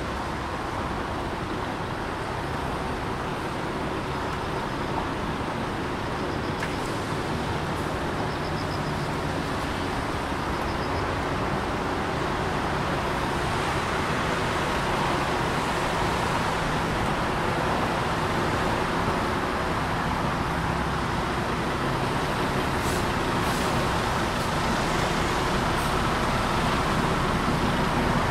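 Road traffic on a rain-wet road: a steady hiss of tyres with engines underneath, slowly growing louder.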